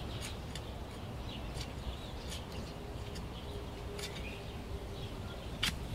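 Soft, scattered scrapes and clicks of garden soil being dug over by hand, with faint bird chirps behind.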